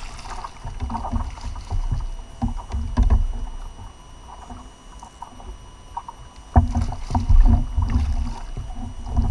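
Irregular knocks and thumps against a plastic fishing kayak's hull, with water sloshing, as a hooked yellowtail is brought alongside to be landed. A louder stretch of thumps and low rumble starts suddenly about two thirds of the way in.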